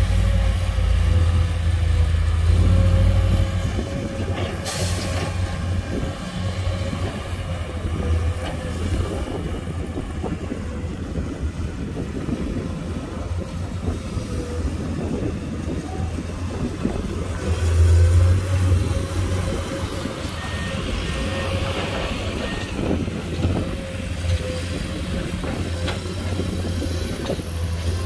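Komatsu PC210 hydraulic excavator's diesel engine running, swelling under load as it digs and spreads sand, with a steady hydraulic whine and clanks of the bucket and tracks. About three-quarters of the way through come a few short high beeps and a brief hiss of air.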